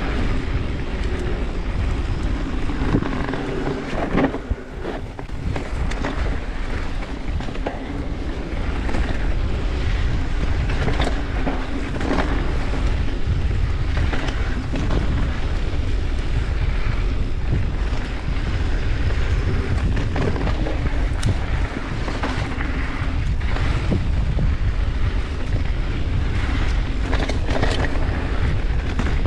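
Mountain bike descending a rough dirt trail: wind buffets the camera microphone over a steady low rumble of the tyres, with scattered clacks and rattles as the bike goes over rocks.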